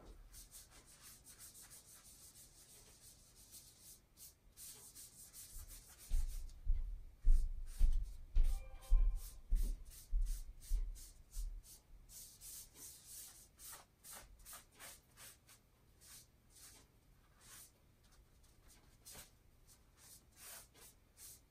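Wad of paper towel rubbing and dabbing over a sheet of wet-inked Tyvek, in quick swishing strokes as excess ink is blotted up. In the middle comes a run of dull thumps, about two a second, as the pad is pressed down on the table, the loudest part.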